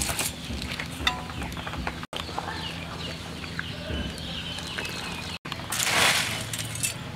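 Chickens clucking in the background, a series of short falling calls, over the bubbling of a pot of boiling water. About six seconds in, a brief rush of water noise comes as a whole boiled chicken is lowered back into the pot.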